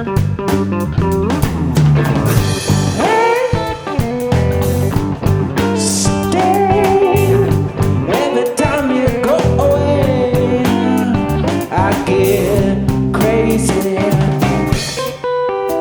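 Live rock band playing a bluesy jam on drum kit, bass and electric guitar, with a lead line bending in pitch over a steady beat.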